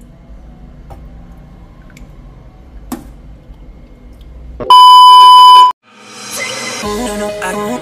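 A few faint metal clinks of a ladle against a steel pot, then a loud, steady electronic beep tone lasting about a second that cuts off sharply; after a short gap, music fades in as an intro sequence begins.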